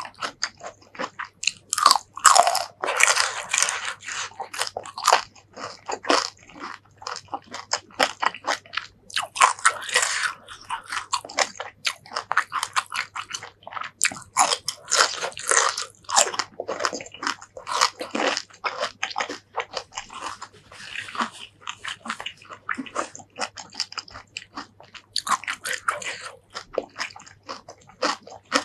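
Close-miked eating: sharp crunching bites into crisp raw vegetable sticks and bits of fried fish, with chewing in between, dozens of crunches over the stretch.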